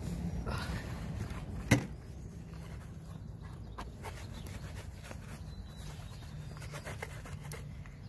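Sponge scrubbing on a wet alloy car wheel with faint rubbing and scattered light clicks, and one sharp knock about two seconds in, over a low steady hum.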